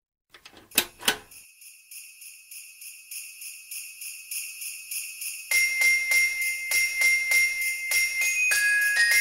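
Sleigh bells jingling in a steady rhythm and growing louder, as of a reindeer sleigh approaching. Two sharp strikes come near the start, and steady ringing bell tones join about halfway through.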